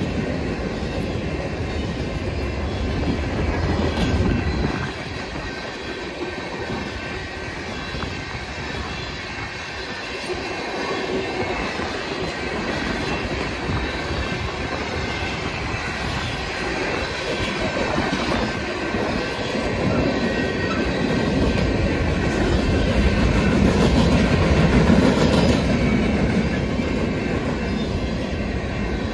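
Freight cars of a mixed manifest train (gondolas, tank cars and covered hoppers) rolling past close by: steel wheels rumbling and clacking over the rail joints, with a thin high wheel squeal ringing on top. It gets louder about three-quarters of the way through.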